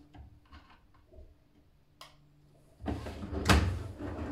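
Detergent drawer of a Siemens iQ500 washing machine being handled: mostly quiet, a single click about two seconds in, then a louder rattling and a sharp knock from about three seconds in.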